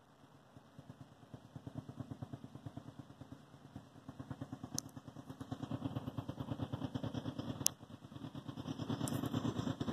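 Diesel engines of approaching Union Pacific freight locomotives: a rapid low throbbing that grows steadily louder. A few sharp clicks cut in over it.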